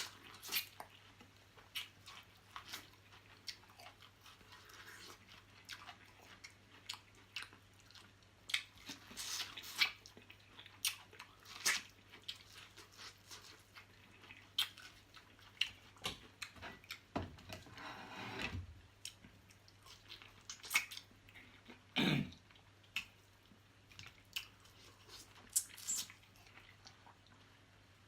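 Close-miked eating: wet chewing, lip smacks and sharp mouth clicks, scattered irregularly and several a second, as someone eats crab, buttered corn on the cob and potatoes.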